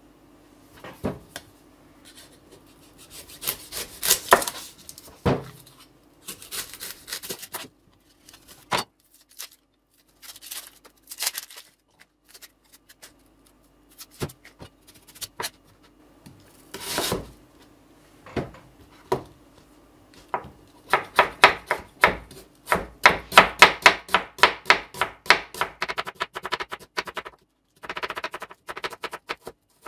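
An onion's dry papery skin rustles and crackles as it is peeled and trimmed with a kitchen knife. Then the knife slices the onion on a cutting board, a quick run of knife strikes on the board, about four a second, with a few more near the end.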